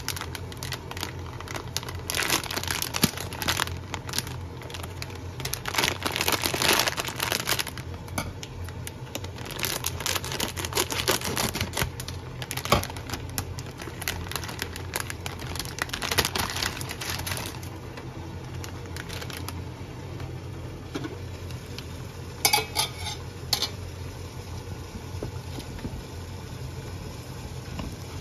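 The plastic wrapper of an Ottogi Sesame Ramen instant-noodle packet crinkles and rustles in irregular bursts as it is handled and opened. A few sharp knocks come later, over a steady low hum.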